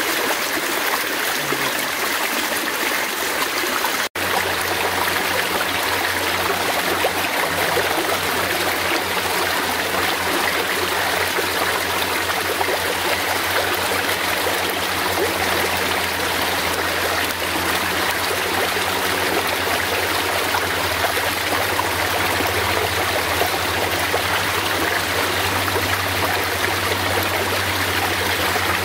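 Fast-flowing forest stream running and trickling in a steady, even wash. A brief dropout about four seconds in, after which a low steady hum sits beneath the water.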